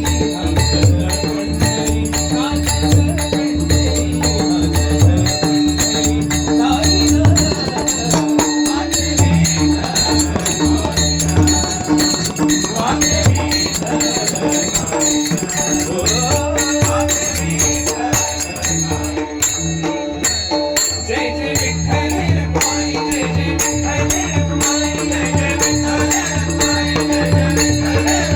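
Instrumental passage of a Marathi devotional bhajan: one held drone note runs under repeated hand-drum beats and a continuous jingle of small hand cymbals.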